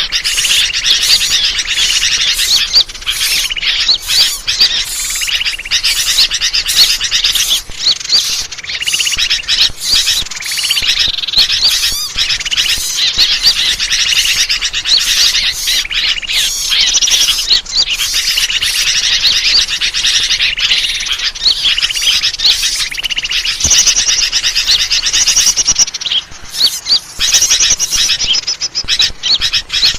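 Dense chorus of many small birds chirping, high and rapid without a break: a bird-lure (pikat) recording meant to draw in all kinds of birds.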